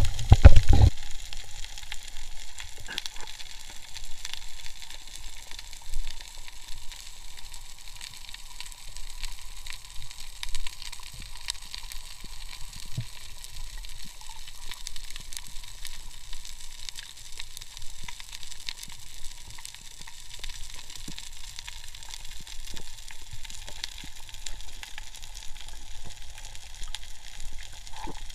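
Underwater ambience picked up by a camera's microphone in the sea: a steady crackling hiss with many scattered sharp clicks. A loud low rumble comes in the first second.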